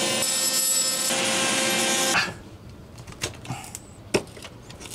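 Makita cordless oscillating multi-tool running steadily as its blade cuts a hole through peel-and-stick marble mosaic backsplash tile, stopping about two seconds in. A few light clicks and taps follow.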